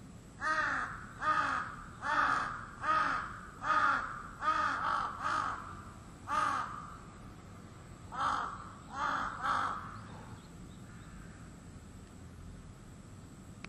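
A crow cawing repeatedly, about a dozen harsh caws in quick succession with a short pause about two thirds of the way through, falling silent near the end.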